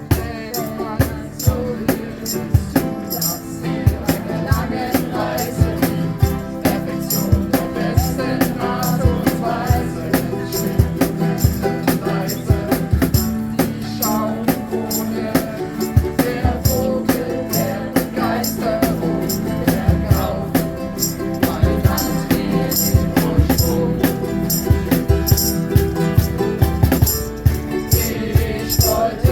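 Ukulele music with a steady strummed rhythm of sharp, evenly spaced strokes.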